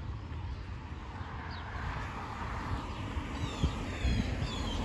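Street ambience with the rush of a passing car, and a bird chirping a quick run of short falling notes about three and a half seconds in, with a single light knock among them.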